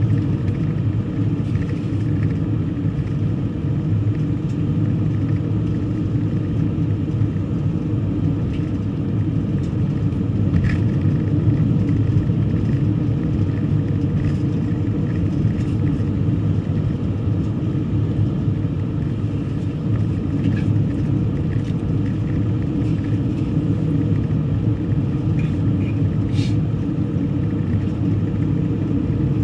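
A car driving along: a steady, even rumble of engine and road noise, with a few faint ticks.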